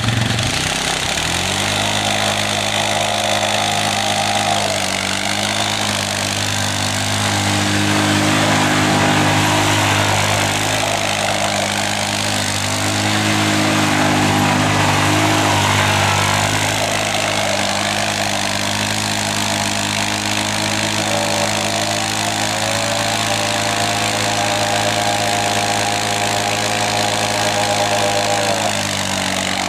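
ATV engine held at high revs while its rear tyres spin on pavement in donuts and a burnout. The engine note rises about a second in, dips briefly, and drops near the end.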